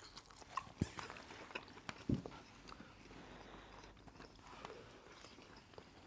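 Faint eating sounds: chewing and small wet mouth clicks, with a few soft knocks of wooden spoons against plates.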